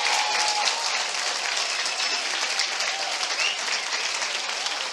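Congregation clapping steadily, with a few voices calling out over the applause.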